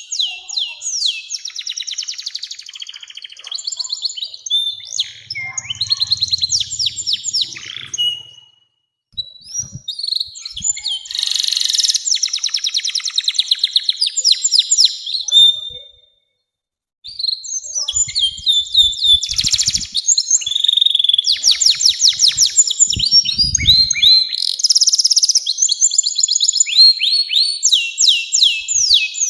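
Domestic canary singing long, fast rolling trills and chirps, with two brief breaks in the song about eight and sixteen seconds in.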